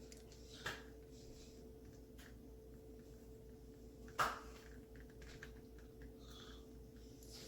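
Faint steady hum with two sharp clicks, the second and louder about four seconds in.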